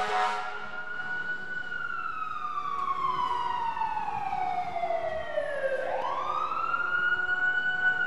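Fire truck siren wailing: the pitch tops out about a second in, falls slowly for about five seconds, then rises quickly back up and holds high near the end. The tail of a horn blast ends just as it starts.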